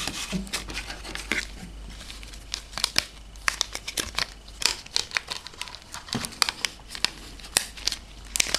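Packaging of new RAM memory modules being opened by hand: a run of irregular sharp crackles and clicks.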